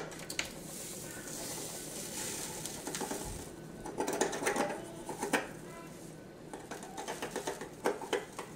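Measuring spoon scraping and tapping inside a container of caked sea salt to break it loose, with a grainy scratching at first, then scattered small clicks and knocks.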